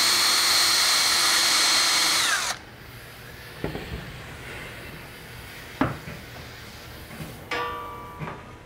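Cordless drill boring a pilot hole into clamped melamine-faced particle board: a steady whine for about two and a half seconds that drops in pitch as it stops. A couple of light knocks follow, and a short squeak near the end.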